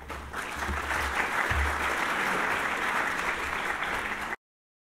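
Audience applauding, a dense steady clatter of many hands clapping that cuts off suddenly about four seconds in.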